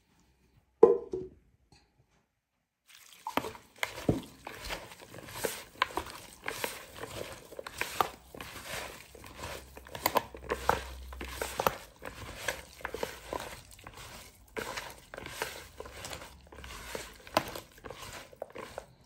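A bare hand mixing and squeezing a damp pakora mixture of shredded vegetables, flour and spices in a plastic bowl: a steady, irregular run of squishing and crunching. A single thump comes about a second in, before the mixing starts.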